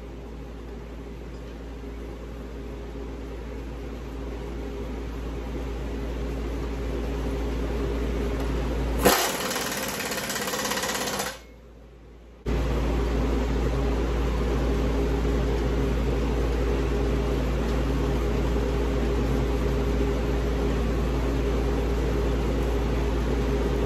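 Steady mechanical hum of a machine running, slowly growing louder. About nine seconds in comes a loud hiss lasting about two seconds, then the sound drops out for about a second and the hum resumes, steady.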